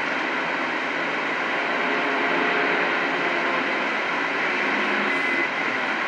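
CB radio receiver hiss: steady static on an open 11-metre channel between transmissions, with a few faint steady tones of weak signals under the noise.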